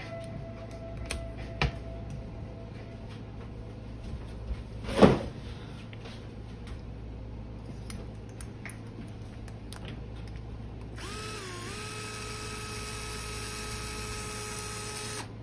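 DeWalt cordless electric screwdriver spinning up and running steadily for about four seconds near the end, then stopping abruptly, as it backs out the cooling-head screws of a small nitro RC engine. A single loud knock comes about five seconds in, along with a few light clicks of tools being handled.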